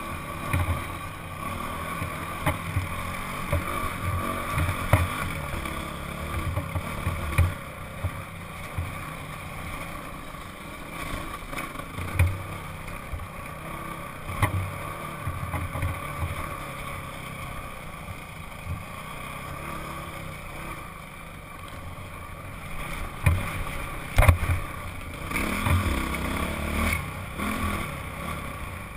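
Honda CRF single-cylinder four-stroke dirt bike engine running at a steady cruising pace on rough slickrock, with wind rumbling on the helmet-mounted microphone and scattered short thumps from bumps in the trail.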